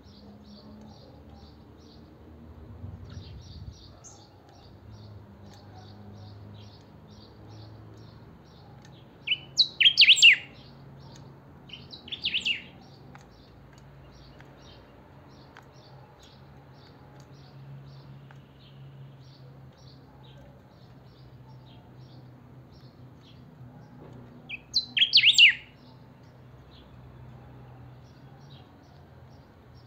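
Caged grayish saltator (picahueso, pepitero gris) singing loud short phrases: one about ten seconds in, another two seconds later, and one near the end. Faint rapid high chirps run underneath between the phrases.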